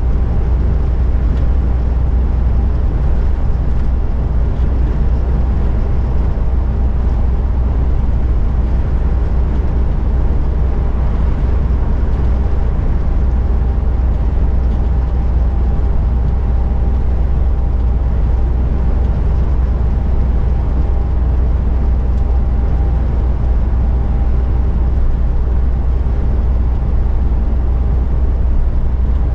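Steady low drone of a MAN truck's diesel engine and tyre and road noise, heard from inside the cab while cruising at constant speed.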